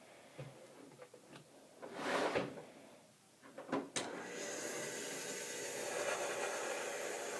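A few light knocks and a short whoosh, then a sudden click and a steady hiss from about halfway: a fog machine pumping fog into a trash-can smoke ring cannon.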